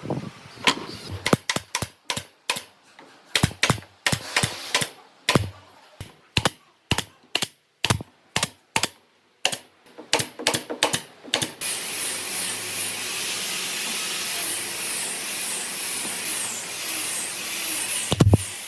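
A run of sharp taps or knocks, uneven at first and then about two a second, stops about two-thirds of the way in. A steady hiss follows, with one thump near the end.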